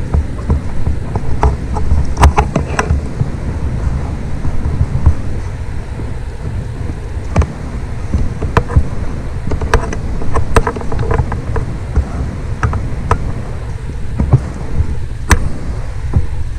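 Wind buffeting the camera microphone in an uneven low rumble, with a few scattered sharp clicks and knocks.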